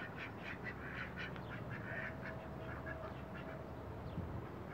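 Domestic ducks quacking in a run of short, quick calls that thin out about halfway through.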